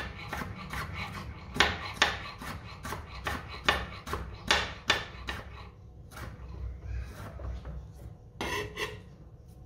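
Chef's knife chopping stacked raw potato slices into thin matchstick strips, the blade knocking on the work surface in an uneven run of cuts, about two or three a second. The cutting thins out after about six seconds, with a few more cuts near the end.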